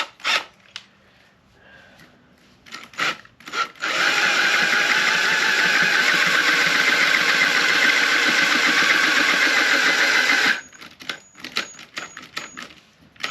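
Power drill with a cobalt bit boring into a motorcycle swing arm: a steady, loud run of about six and a half seconds that starts about four seconds in and cuts off suddenly. Scattered clicks and taps come before and after it.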